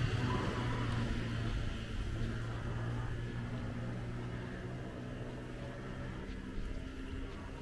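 Street ambience with the steady low hum of a motor vehicle fading as it moves away.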